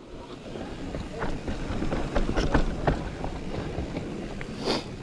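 Specialized Turbo Levo electric mountain bike rolling on a dirt trail: a steady rumble of tyres with frequent knocks and rattles from the bike over bumps, growing louder over the first second.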